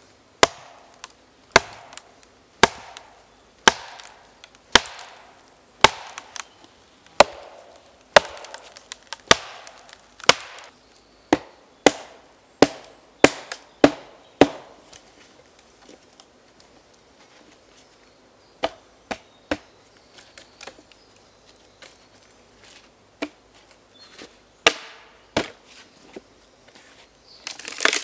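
A wooden club strikes into a green log to split it lengthwise, giving sharp woody knocks about one a second, each with a short ringing tail. The blows stop about fourteen seconds in; after a pause come scattered, lighter knocks.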